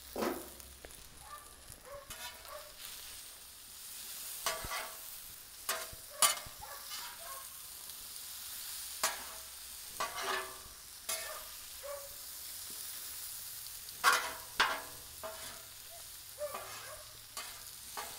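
Potato, bacon and vegetable hash sizzling on a Blackstone steel flat-top griddle, with a metal spatula repeatedly scraping and clacking against the griddle plate as the food is turned. The loudest spatula strikes come about six seconds in and again about fourteen seconds in.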